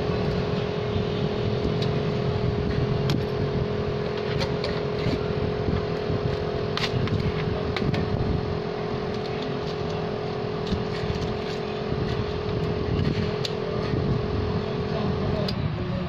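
A steady machine hum with a held tone over a low rumble and a few light clicks; the hum cuts off abruptly about a second before the end.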